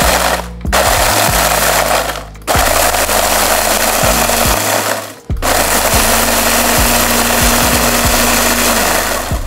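Blender grinding Takis rolled tortilla chips into crumbs, run in pulses: loud grinding that stops briefly three times, about half a second, two and a half seconds and five seconds in.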